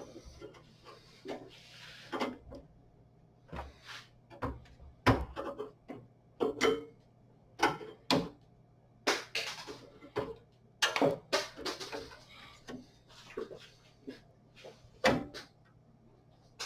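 Irregular clicks, taps and knocks of plastic and metal parts being handled, with short rustles, as protective covers are pulled off a graphics card.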